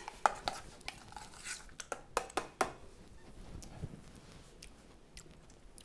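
A metal spoon clicking and scraping against a stainless steel mixing bowl as tartar sauce is scooped out, a run of sharp light clicks over the first few seconds, then quieter.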